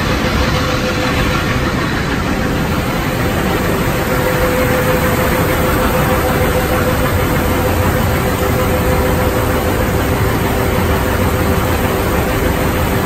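Yongwon SP300 Super Cone Crusher running at 1050 rpm in operation, with its belt conveyor carrying crushed stone: a loud, unbroken mechanical din with a faint steady hum through it.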